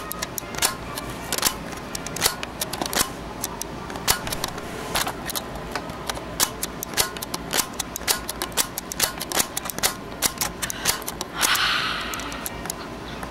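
A boy's scary mouth sounds: a long run of sharp, irregular clicks, two to four a second, then a loud breathy hiss lasting about a second near the end, made with his mouth stretched wide open.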